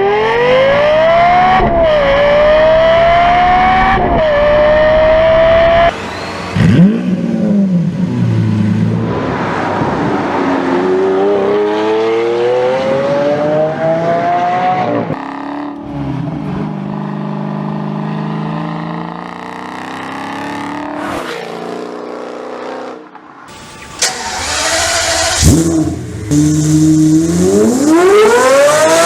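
Several high-performance sports car engines in turn, each accelerating hard through the gears. The engine notes climb steeply in pitch and drop at each upshift, with sudden changes from one car to the next.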